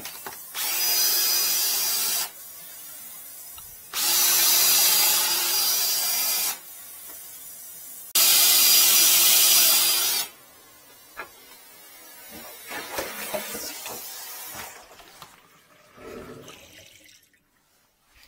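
Power drill spinning a flex-shaft drain cleaner's cable in three bursts of about two seconds each, working at a clog in a 40 mm kitchen sink drain pipe. Quieter handling and rubbing sounds follow between and after the bursts.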